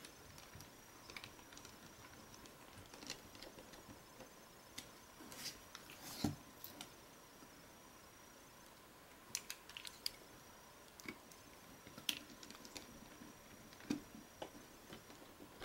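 Faint, irregular small clicks and taps of a precision Phillips screwdriver and fingers working the tiny screws back into a Samsung Galaxy Nexus's plastic rear frame, with a faint steady high whine behind.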